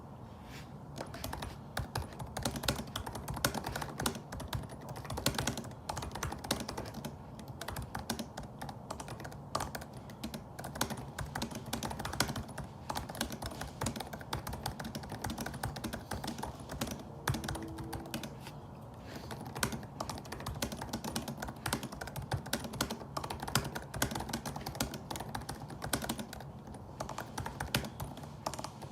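Laptop keyboard being typed on steadily, a quick, uneven run of key clicks as in a typing test.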